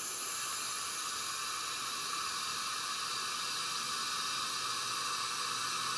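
Steady hiss of compressed air flowing through a leak-down tester into an engine cylinder and leaking out of it. The cylinder leaks about 20%, and the tank pressure feeding the test is dropping.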